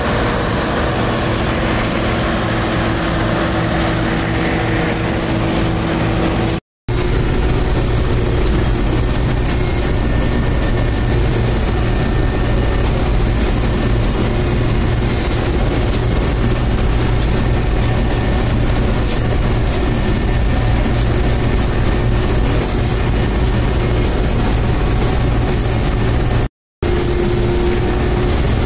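Bizon Rekord Z058 combine harvester running steadily while harvesting barley: a loud, continuous engine and threshing-drum drone. For the first few seconds it is heard from beside the machine, then from inside the cab. The sound cuts out briefly twice.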